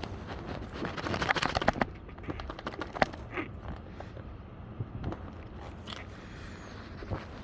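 Scraping and clicking handling noises: a quick run of rapid clicks about a second in, then a single sharp click and a few scattered knocks.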